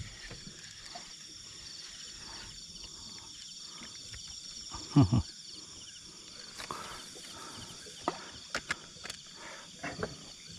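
Steady high-pitched chorus of night insects, with a short, loud low sound about five seconds in and a few sharp clicks near the end.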